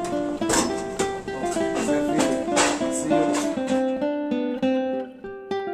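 Acoustic guitar music: picked notes in a running melody, with a few strummed chords.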